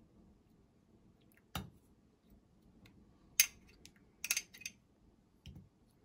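Metal spoon clinking against a glass jar and olives being dropped into a glass dish: a few short, sharp clicks spaced about a second apart, with a quick cluster a little past the middle.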